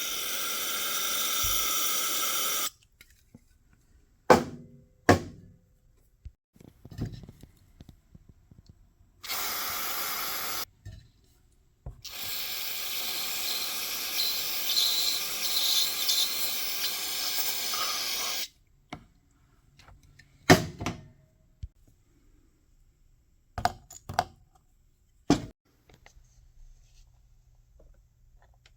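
Carburetor parts being sprayed clean: three steady hissing spray bursts, the last and longest lasting about six seconds. Several sharp clicks and knocks of small parts being handled come between and after them.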